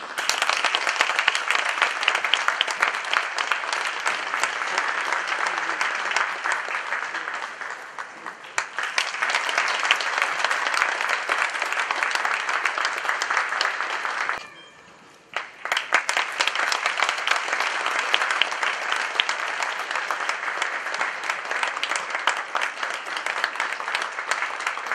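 Sustained applause from a crowd of many hands clapping. It eases briefly about eight seconds in and stops for about a second about halfway through before picking up again.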